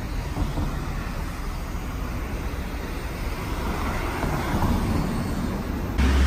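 Car on the road: steady road and engine rumble that swells about four seconds in, then turns abruptly louder and deeper near the end.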